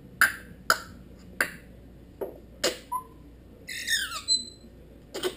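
African grey parrot giving a string of short, sharp calls, about six in the first three seconds. Around four seconds in comes a whistled call that falls in pitch, and one more sharp call follows near the end.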